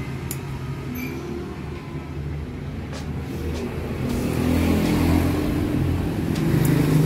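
A motor vehicle engine running steadily, growing louder about four seconds in, with a few faint clicks over it.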